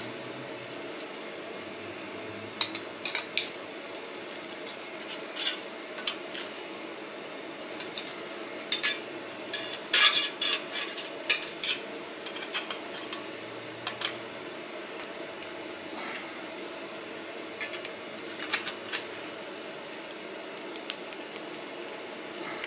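Pliers gripping and twisting thin steel sheet to pry apart spot-welded pieces: scattered sharp metallic clicks and clinks, busiest about ten seconds in, over a steady background hum.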